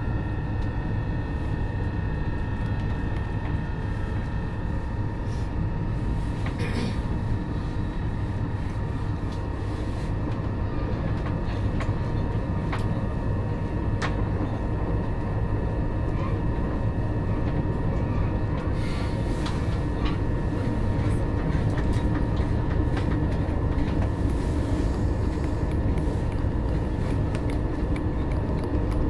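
Onboard sound of an electric commuter train, an Alstom Coradia Nordic unit, running between stations. The traction motor whine holds a steady pitch over the deep rumble of wheels on rail, with scattered short clicks, and it grows slightly louder in the second half.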